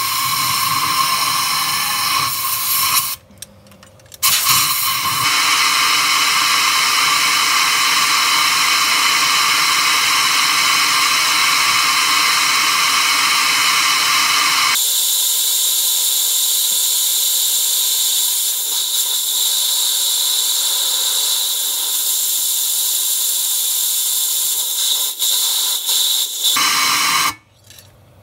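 Compressed-air blow gun hissing down into a freshly reamed spark plug hole in the V10's aluminium cylinder head, blowing out the reaming debris. A short blast, a pause of about a second, then a long continuous blast that thins out about halfway through and cuts off shortly before the end.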